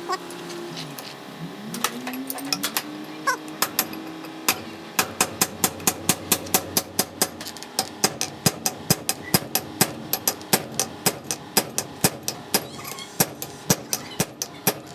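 Hammer blows on metal: a few scattered strikes, then a quick, even run of about three to four blows a second from about five seconds in.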